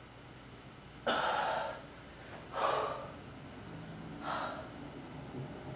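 A woman breathing hard from exertion: three heavy, gasping breaths about a second and a half apart, the first the loudest.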